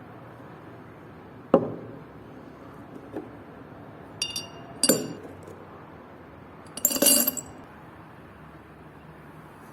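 A few separate clinks and knocks of hard objects being handled. There is a sharp knock about one and a half seconds in, two short ringing clinks around the middle, and a brief cluster of ringing clinks a little later.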